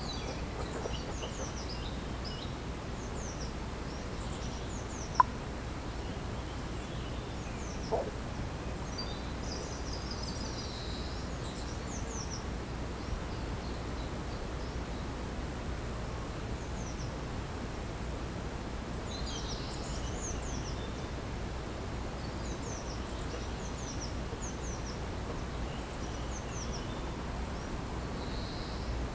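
Small birds chirping and singing in short, high calls scattered throughout, over a steady low background noise. Two brief, sharp sounds stand out at about five and eight seconds in.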